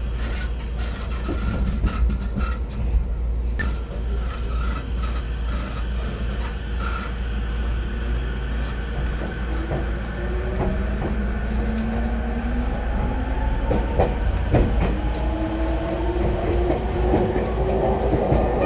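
Inside an E231-series commuter train car: a steady rumble of wheels on rail with scattered clicks. About ten seconds in, the traction motor whine starts and climbs in pitch as the train accelerates.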